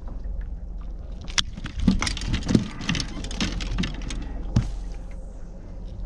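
Irregular knocks, taps and clatter as a rainbow trout in a landing net is handled on the boat's deck, over a low steady rumble.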